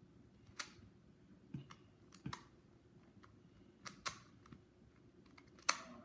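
Irregular light clicks and taps, about six of them a second or so apart, the sharpest and loudest near the end.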